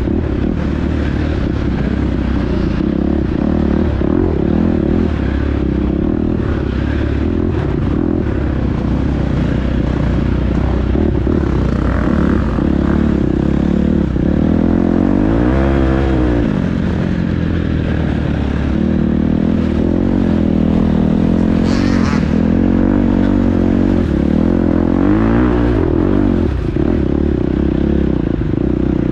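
Dirt bike engine, heard from on board, revving up and down as the rider works the throttle along a wooded trail, with a brief clatter about three-quarters of the way through.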